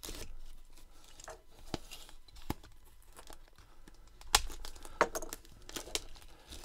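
Plastic packaging crinkling and tearing with scattered sharp clicks and taps as a shrink-wrapped trading card set box is handled, loudest about four to six seconds in.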